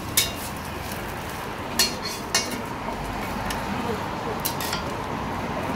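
Metal spatula and scraper clinking and scraping on a flat-top steel griddle while omelet-wrapped gimbap rolls are pushed together. A few sharp metal clinks, one just after the start, two around two seconds in and a couple more near the end, over a steady background hiss.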